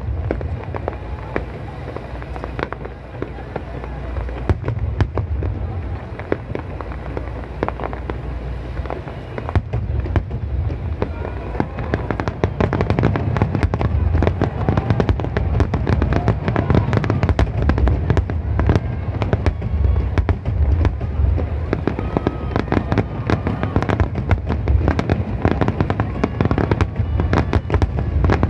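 Aerial firework shells bursting in rapid succession, a dense run of deep booms and sharp bangs that grows louder and busier from about ten seconds in.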